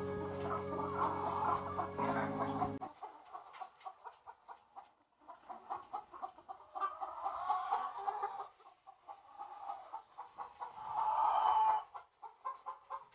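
A flock of caged White Leghorn laying hens clucking and cackling, many birds at once, with a louder burst of calling near the end. For the first three seconds a low steady drone runs underneath, then stops.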